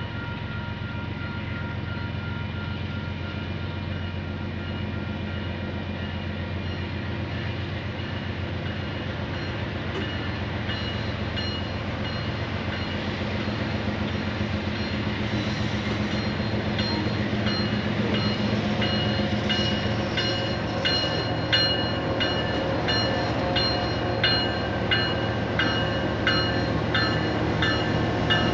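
Diesel freight train approaching and passing: a steady locomotive engine rumble, then wheels clicking over the rail joints in a quickening rhythm that grows louder through the second half.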